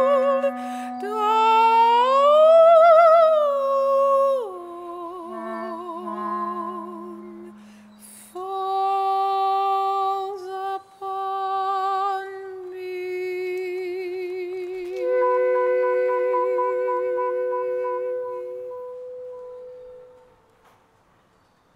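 A soprano voice singing long, slow held notes with wide vibrato and gliding between pitches, over a clarinet sustaining low notes beneath her. The phrases thin out and fade away about twenty seconds in.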